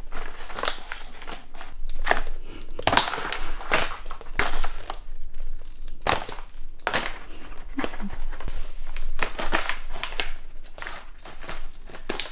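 Thin clear plastic box or tray clattering, crinkling and scraping on a wooden floor as dogs nose and paw at it to get treats hidden underneath: irregular clicks and scrapes, with short gaps between.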